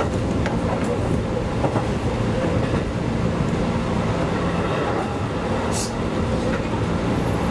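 211 series electric train running at speed, heard from inside the leading car: steady running noise and low hum, with occasional clicks of the wheels over rail joints and a brief hiss about six seconds in.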